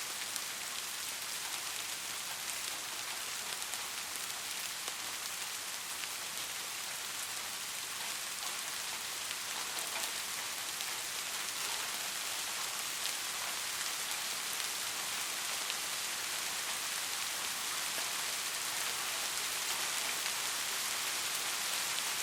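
Heavy rain falling steadily: a dense, high hiss of rain with scattered single drop ticks, growing a little louder near the end.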